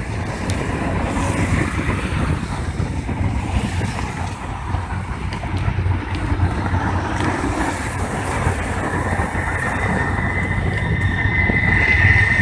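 CN freight train approaching behind two diesel locomotives, a steady rumble of engines and wheels on the rails. A high steady squeal joins it near the end, where the sound is loudest.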